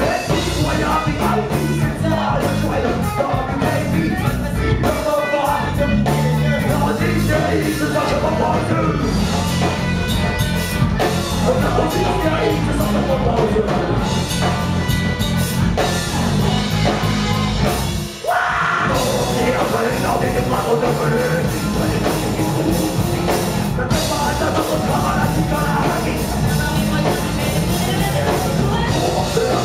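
Live rock band playing loud, with electric guitars, drum kit and a singer. The music drops out for a moment about two-thirds of the way through, then comes straight back in.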